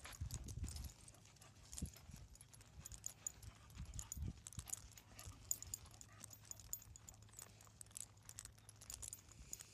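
Faint, irregular steps crunching and clicking on a gravelly dirt trail, with a few low thumps on the microphone.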